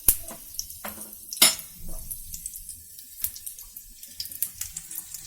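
Coconut oil with crushed garlic and whole black peppercorns sizzling softly in a small tempering ladle over a low flame, with faint scattered crackles. Two sharp clicks stand out, one right at the start and one about a second and a half in.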